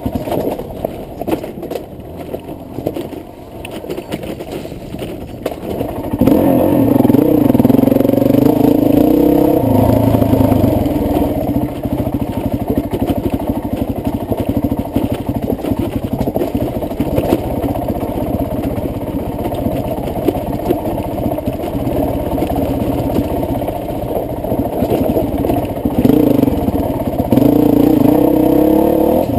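Honda CRF450X four-stroke single-cylinder dirt bike engine running under the rider, muffled. It is softer for the first few seconds, then opens up about six seconds in, with the revs rising and falling as the bike is ridden along the trail, and picks up again near the end.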